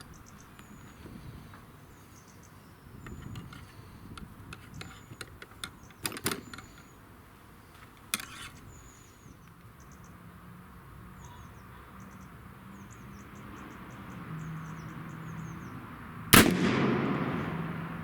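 A single shot from a .44 calibre black-powder percussion target pistol about sixteen seconds in: a sharp crack followed by a ringing tail that dies away over about a second and a half. Earlier come a couple of short sharp clicks.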